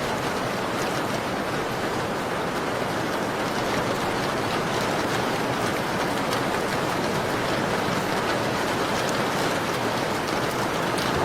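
Steady rain on a window: an even, dense hiss with faint scattered ticks of drops.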